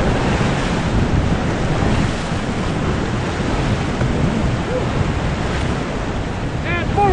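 River whitewater rapids rushing steadily around a paddle raft.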